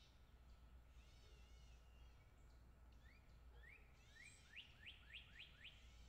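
Faint songbird chirps: from about halfway through, a quick series of short rising notes, about three a second, growing louder toward the end, over a low steady rumble.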